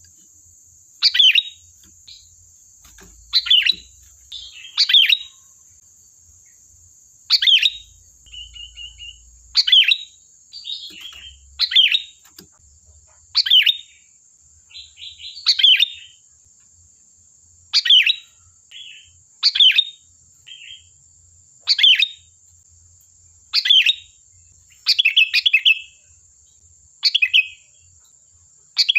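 Sooty-headed bulbul (kutilang) singing: short, loud phrases that sweep downward, repeated about every two seconds, with softer chattering notes between some of them.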